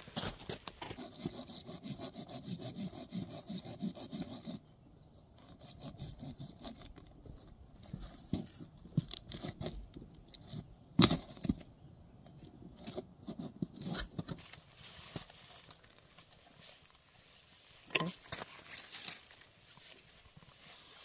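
Sticks and kindling being worked and handled for a fire lay. It opens with about four seconds of rhythmic scraping or sawing strokes on wood, then scattered knocks and cracks of sticks, the sharpest about eleven seconds in.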